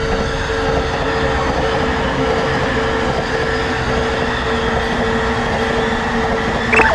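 Japanese level-crossing warning bell ringing in an even, repeating tone while a train runs past with a steady rumble of wheels on rails. Near the end comes a brief high-pitched squeal.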